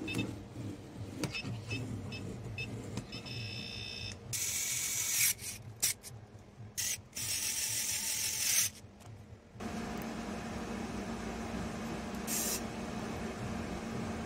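A few short electronic beeps, then a SKIL 4V cordless screwdriver running in two bursts of a second or two, its small motor whirring as it drives wall plate screws; a steady hum follows.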